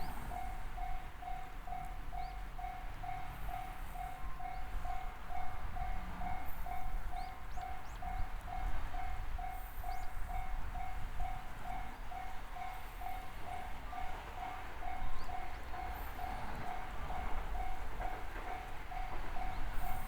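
Railway level-crossing warning alarm sounding the JR standard electronic bell tone, pulsing evenly about twice a second. Under it, a JR West 213 series electric train runs by with a continuous rumble.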